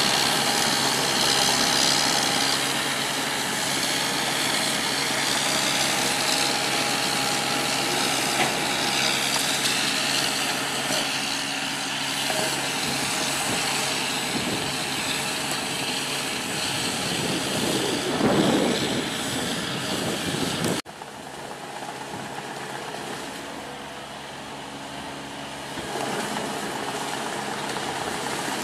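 Truxor DM 5000 amphibious tool carrier running across water, its engine droning steadily over the splash and churn of water thrown up at its rear. The sound drops suddenly in level about two-thirds of the way through and carries on quieter.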